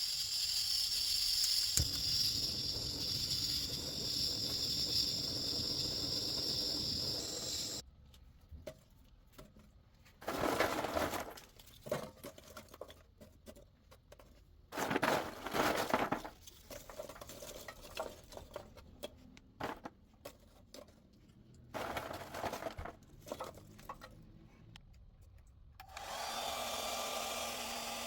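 Hair dryer fan, converted to run on 12 volts, blowing with a steady whir and a high whine. It stops after about eight seconds, runs in a few short bursts, and runs steadily again near the end.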